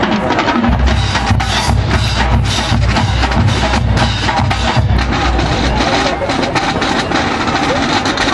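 Marching drumline playing a percussion cadence: rapid snare drum stick strokes with bass drums and cymbals. The bass drums come in about a second in and drop out around six seconds, leaving the snares playing on their own.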